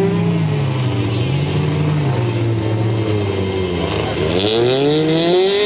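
Autocross race car engines on a dirt track. The engine note falls away over the first couple of seconds, then climbs steeply from about four seconds in as a car accelerates.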